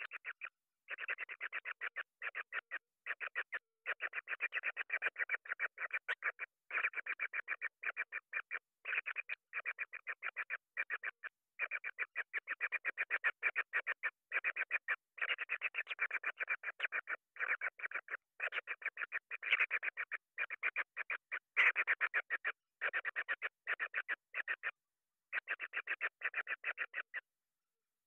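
Young kingfisher calling in long runs of rapid, harsh, evenly repeated notes, with short pauses every second or two, falling silent near the end.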